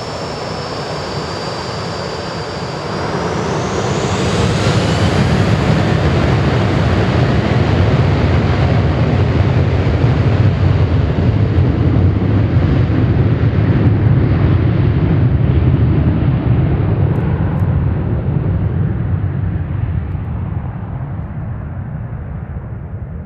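Boeing 737-800's twin CFM56-7B turbofan engines at take-off. A steady high whine rises in pitch a few seconds in as they spool up to take-off thrust. A loud jet roar then builds and slowly fades as the aircraft moves away.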